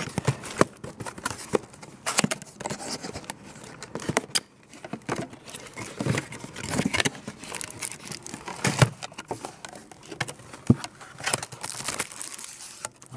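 Cardboard product box being opened by hand: irregular rustling, scraping and small knocks as the box and its paper inserts are handled.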